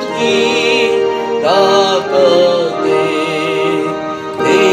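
A hymn being sung to musical accompaniment: long held notes with a slight waver, a new phrase beginning about a second and a half in and another near the end.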